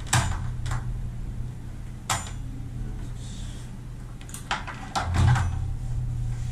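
Knocks and clatters as climbing skins and the halves of a splitboard are handled and laid out on a work bench: a handful of sharp knocks, the loudest cluster about five seconds in, over a steady low hum.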